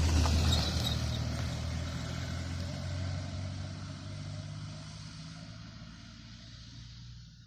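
A loaded lorry's diesel engine, loudest as it goes by close at the start, then a steady low drone that fades as the truck pulls away.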